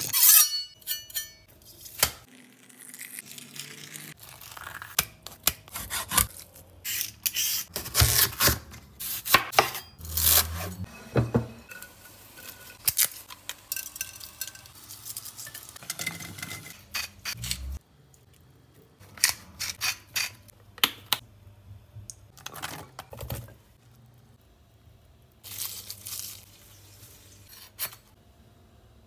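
Kitchen food-preparation sounds: a series of sharp clicks and knocks of a knife and utensils against a clay pot, with rustling and tearing of a plastic bag and of herbs and vegetables.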